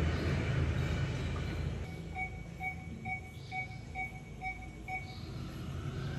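A low, steady hum that drops away about two seconds in. Then an electronic medical monitor in a neonatal intensive care unit gives seven short beeps, about two a second, and stops.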